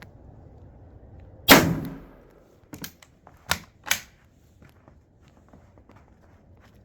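A single rifle shot from a Dreyse needle rifle firing a 3D-printed sabot, with a short ringing tail. About a second later come a few sharp metallic clicks: two light ones, then two louder ones.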